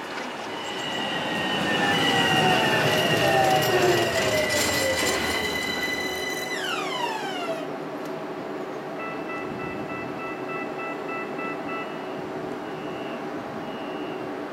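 Tram pulling in close and stopping. Its running noise and steady motor whine are loudest a few seconds in, then the whine drops steeply in pitch and dies away as it comes to a halt. A series of electronic beeps follows, quick at first and then a few longer ones, over a low steady hum.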